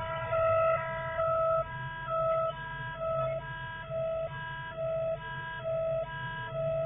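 Electronic two-tone warning siren switching steadily between a lower and a higher tone, about once a second, starting abruptly, over a low steady hum.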